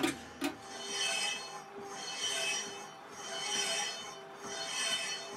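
Metal scraping in even, rasping strokes that swell and fade about every 1.3 seconds, after two sharp clicks at the start.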